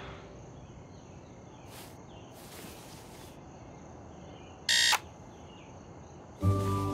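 Quiet night ambience with faint crickets, then about five seconds in a digital alarm clock gives one short, loud electronic beep that is cut off at once as a hand comes down on it. Music starts near the end.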